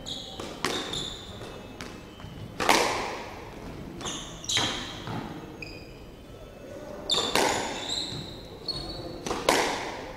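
Squash ball cracking off rackets and the court walls: about seven sharp, irregularly spaced hits, each echoing in the enclosed court. Between them come short high squeaks of court shoes on the wooden floor.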